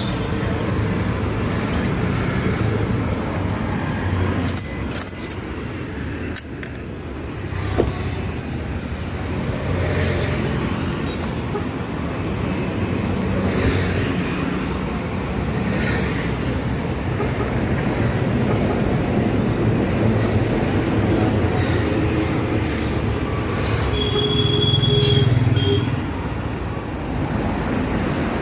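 Motor vehicles running nearby, a steady low rumble with no speech over it. Near the end there is a brief high tone.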